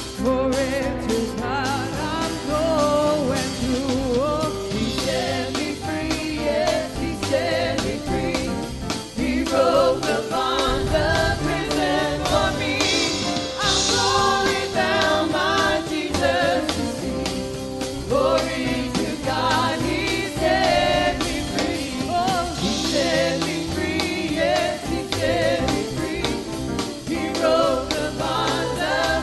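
Live gospel worship song: several singers singing together over instrumental backing with a steady beat.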